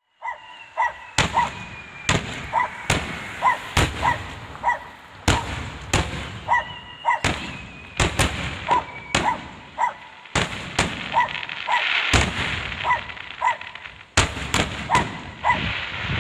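Aerial fireworks shells bursting in a long irregular string of sharp booms, some close together. A crackling hiss follows the bursts about twelve seconds in and again near the end.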